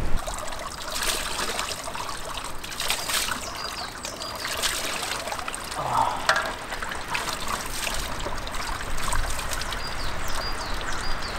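Water trickling and splashing from a mountain spring tap, with many small drips and splatters.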